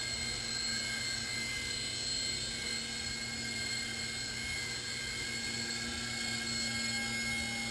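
Small iPhone-controlled toy helicopter's electric motors and rotors running steadily, a high whine made of several steady tones over a low hum.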